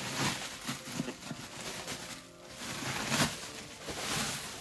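Bubble wrap rustling and crinkling as it is pulled and unwound from a hollow plastic animatronic head, in several rustles, the loudest about three seconds in, over background music.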